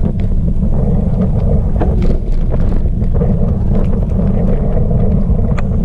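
Wind buffeting the microphone of a camera carried on a moving bicycle: a loud, steady low rumble, with scattered small clicks and rattles.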